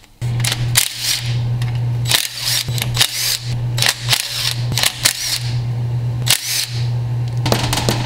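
Cordless impact driver hammering bolts loose on a Dana 20 transfer case, running in several long bursts with short pauses between them.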